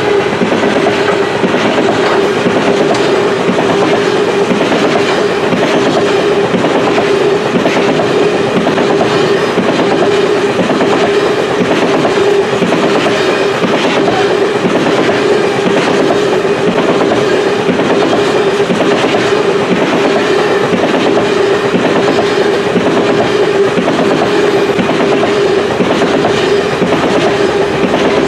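Freight train of open-top coal cars rolling past: a steady rumble of steel wheels on rail, with a rhythmic clickety-clack as the wheel sets cross rail joints. A steady ringing tone runs above it.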